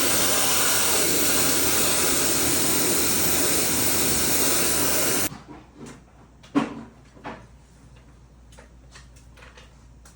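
High-pressure water spray hissing steadily while cleaning an air conditioner, cutting off suddenly a little past halfway; a few faint clicks and knocks follow.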